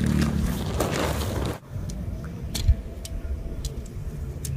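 Tent fabric and its carry bag rustling loudly as they are handled, cutting off sharply about a second and a half in. Then scattered light clicks of tent pole sections being fitted together, a single low thump, and a low wind rumble.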